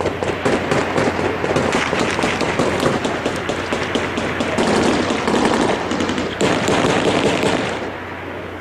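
Heavy sustained gunfire: rapid, overlapping rifle and machine-gun shots crack one after another during a firefight, thinning out near the end.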